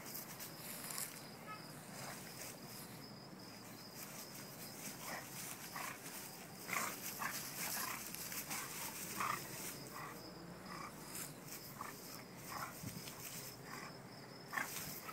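An English bulldog and a brindle puppy play-wrestling, their short dog noises coming in quick, irregular bursts, thickest through the middle.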